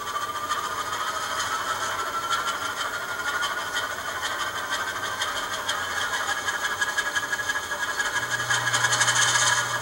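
ESU LokSound decoder in an N-scale Alco DL-109 model locomotive playing diesel engine sound through its tiny speaker. The engine chugs evenly, with a whine that slowly rises in pitch, and the sound gets louder, with a low hum added, about eight seconds in.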